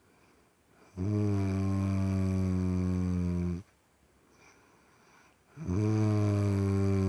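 A sleeping person snoring: two long, low, steady snores about two and a half seconds each, with a quiet pause of about two seconds between them.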